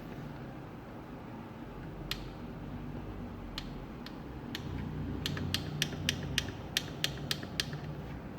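A series of sharp mechanical clicks: a few spaced ones, then about ten in quick succession at roughly four a second, over a steady low hum.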